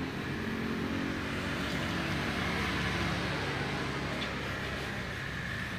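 An engine idling steadily, a low, even hum that holds without change.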